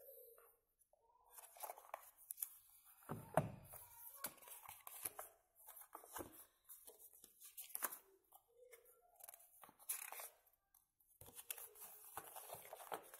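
Paper leaflets, a warranty card and user manual, being handled and unfolded, rustling and crinkling in irregular bursts, with a single thump about three seconds in.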